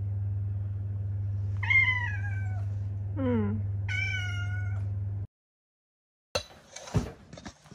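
House cat meowing three times, each call falling in pitch, the first and last long and the middle one short and lower. A steady low hum runs underneath and cuts off suddenly after the third meow, and a few light knocks follow near the end.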